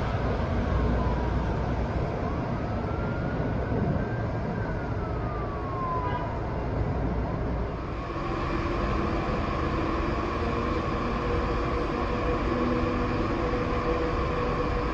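Street traffic and a passing monorail tram, with a siren wailing slowly up and down over the first half. After about eight seconds the sound changes to a steady hum carrying several even tones.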